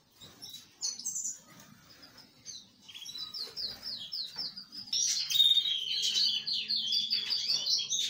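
Small cage birds chirping and twittering in an aviary. Quick high notes come sparsely at first, then a dense, louder run of twittering starts about five seconds in.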